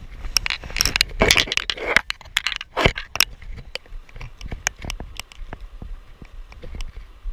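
Metal pincers bouncing against a GoPro's plastic case, making sharp irregular clicks. Over the first three seconds there is a denser clatter of knocks and rustling close to the microphone, the loudest knock near three seconds in.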